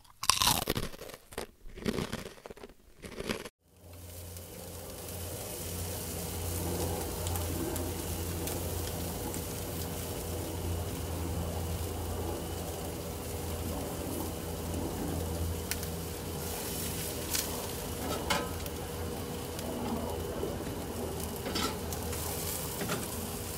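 A short, choppy intro sound over the channel logo in the first few seconds, then chicken and green-onion skewers sizzling on a street-stall grill over a steady low hum, with a few faint clicks.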